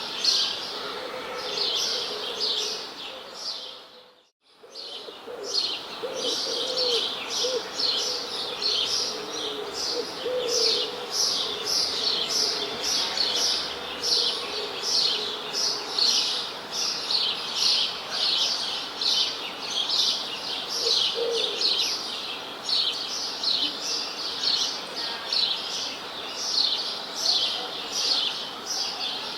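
A flock of small birds chirping continuously: rapid, high, repeated chirps, a few lower calls among them. The whole sound dips almost to silence for a moment about four seconds in, then returns unchanged.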